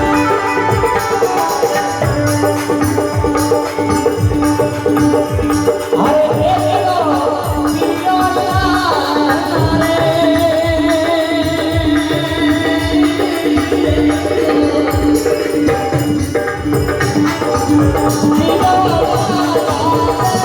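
Indian folk music interlude with a steady held drone under a wavering melody line and a rhythmic hand-drum beat.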